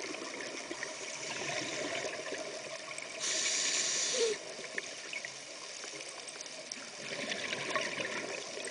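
Scuba diver breathing through a regulator, heard underwater through a camera housing: crackling, gurgling exhaust bubbles, with one steady hiss of about a second, an inhalation through the regulator, about three seconds in. The bubbling picks up again near the end.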